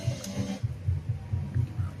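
Background music with a low, pulsing bass, under faint sounds of a buffalo chicken wing being bitten and chewed near the start.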